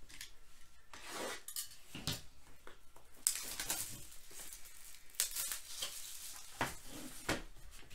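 Hands handling a shrink-wrapped cardboard trading-card box and stripping its plastic wrap: scattered rustles and crinkles with a few light knocks.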